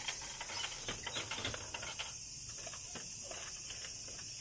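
Coins of change clinking down into a drinks vending machine's coin return: a quick run of small metallic clicks over the first two seconds, then a few scattered ones. Beneath them is a steady high buzz of summer insects, likely cicadas.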